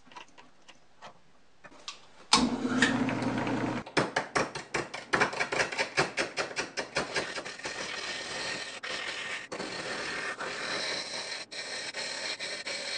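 A small 1750 RPM utility motor starts up about two seconds in and, through a belt, spins a large plywood bandsaw wheel; a hand chisel is then turning down the spinning plywood rim, a rapid chattering scrape of cutting, choppy at first and becoming steadier as the rim is trued.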